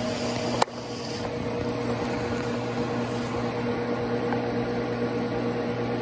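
Steady electrical hum of a powered-up TIG welding machine standing idle, its arc not struck, with one sharp click about half a second in.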